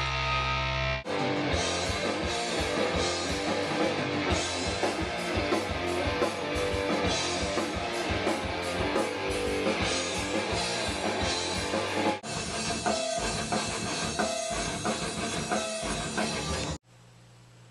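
Heavy stoner rock with distorted electric guitar and a drum kit, changing abruptly about a second in and again partway through, then cutting off suddenly near the end to leave a faint low amp hum.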